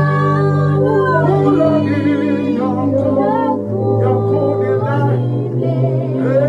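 Gospel worship music: voices singing gliding, drawn-out lines over long held low chords, with the chord changing about four seconds in.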